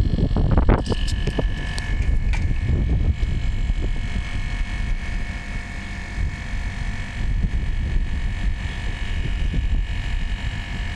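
Split air-conditioner outdoor unit running steadily: a low rumble with a steady high whine that sets in about a second in, under wind on the microphone. The technician suspects the system is clogged or the compressor weak, as the current draw is above the nameplate maximum.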